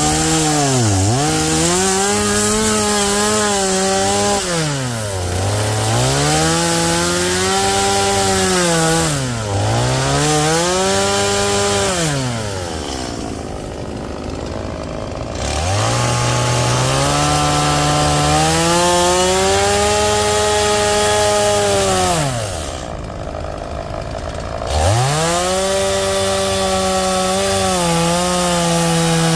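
Two-stroke chainsaw carving into a Western red cedar log, its throttle opened and let off again and again. The engine pitch dips briefly several times and drops to idle twice for a few seconds before revving back up.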